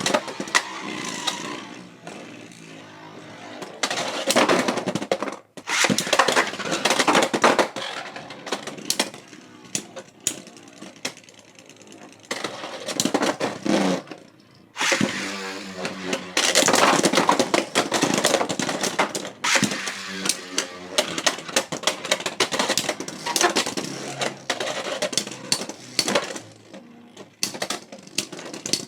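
Beyblade X spinning tops clashing and scraping against each other in a plastic stadium, a dense run of sharp clacks over a grinding whir, with two brief lulls about 5 and 14 seconds in.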